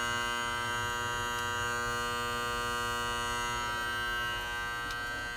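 Honeywell heating control box giving off a steady electrical buzz with many overtones, which eases slightly near the end. The box makes this buzz only now and then while the downstairs heat is on.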